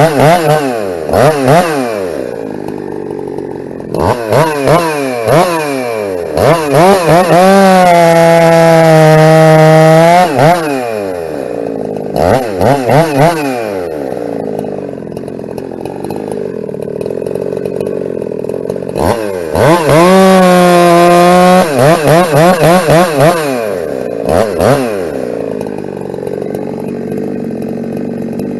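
Ported Husqvarna 372 two-stroke chainsaw, revved in quick throttle blips and twice held at high revs for a few seconds, its pitch sagging a little as if under load in a cut, then dropping back to idle between.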